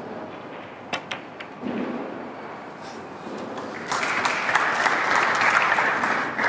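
Sharp clicks of cue tip and snooker balls about a second in as a shot is played and the black is potted. About four seconds in, audience applause starts and is the loudest sound.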